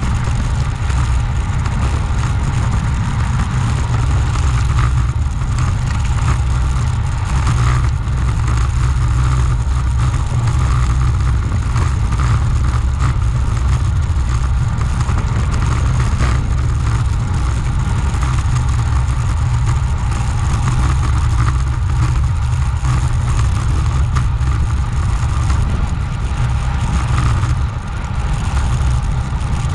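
Wind rumbling over the microphone while cycling at speed: a loud, steady low rumble with a steady higher hum above it.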